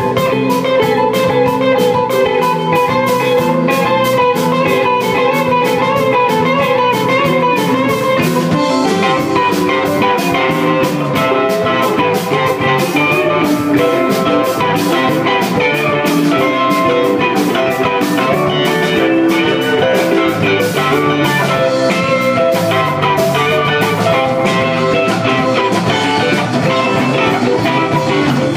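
Live rock band playing: electric guitars, electric keyboard and drum kit, with a steady cymbal beat throughout.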